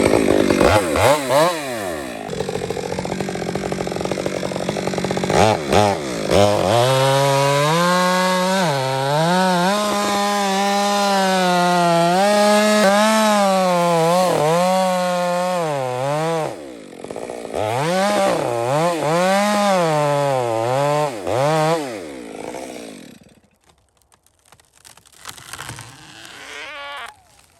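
Two-stroke chainsaw making the back cut through very hard Australian pine, its engine speed repeatedly dipping and recovering as the chain bogs in the dense wood. It drops out briefly about two-thirds of the way through, then runs again and stops a few seconds before the end.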